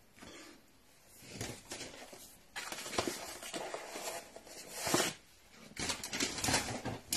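Plastic and paper packaging crinkling and rustling as small items are handled and pulled out of their wrappers, in several bouts with short pauses between.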